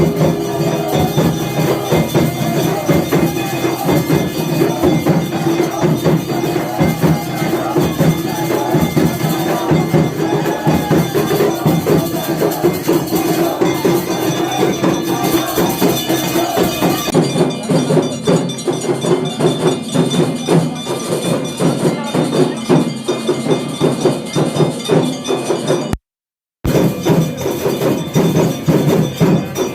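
Temple aarti music: temple bells, cymbals and drums struck fast and without pause in a dense, jangling din. The sound cuts out completely for a moment near the end.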